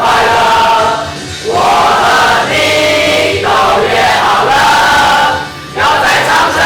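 Music with several voices singing together in phrases, with two short breaks between phrases.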